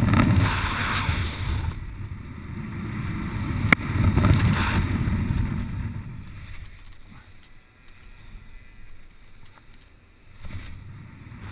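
Airflow rushing over the camera microphone of a paraglider pilot in a helicopter spin, swelling loud twice and then dying down about six seconds in before picking up again near the end. One sharp click about four seconds in.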